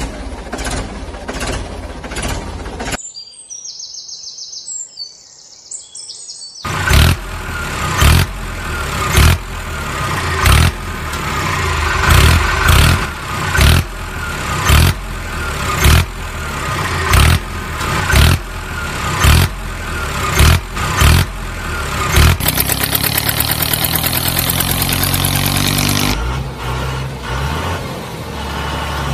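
Tractor engine sound effect dubbed over toy tractor play. It runs with a heavy thump about once a second, briefly gives way to high chirps near the start, then revs with a rising pitch and settles into a low steady run near the end.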